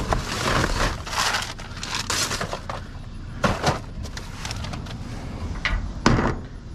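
Rummaging through a box of plastic junk: a run of crinkling, crunching and clattering bursts, with a louder clatter near the end.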